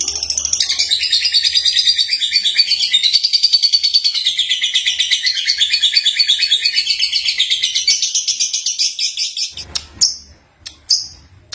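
Young lovebird singing a long, fast, pulsing chatter of high-pitched notes. The song breaks off near the end into a few short, sharp single chirps.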